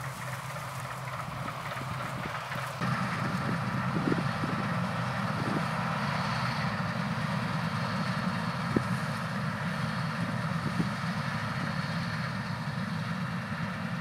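Massey Ferguson 7270 Beta combine harvester running while harvesting barley: a steady engine and machinery drone that gets louder about three seconds in as the combine comes close, with an occasional sharp knock.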